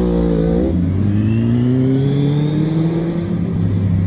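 Sport motorcycle engine accelerating hard. Its pitch drops sharply under a second in, then climbs steadily as it pulls away, fading near the end.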